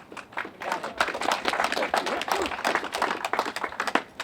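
A group of people applauding, dense overlapping hand claps that start about half a second in and die away at about four seconds.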